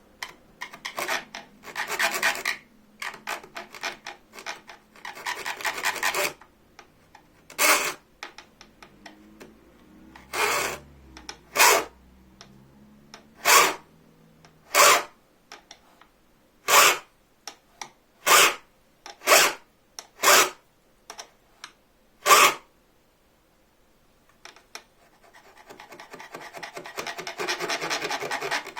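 A hand file cutting teeth into a bow-saw blade, rasping in separate push strokes about one a second, with a brief pause and then a quicker run of short strokes near the end.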